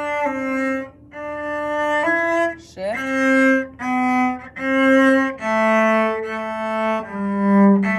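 Solo cello bowed, playing a slow line of sustained single notes one after another, with a short slide in pitch just before three seconds in as the left hand shifts position.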